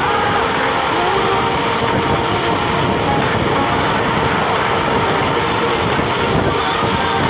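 Wind buffeting the microphone on a moving Nanrobot LS7+ electric scooter, over a steady high whine from the scooter's hub motors.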